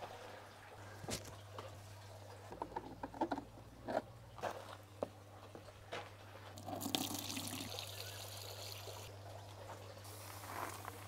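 Plastic plant buckets knocking and clattering as they are handled and set down. A stretch of pouring water runs from about seven to nine seconds in.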